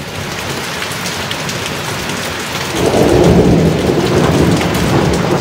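Steady heavy rain falling on tree leaves, with a roll of thunder rumbling in about halfway through and making it louder.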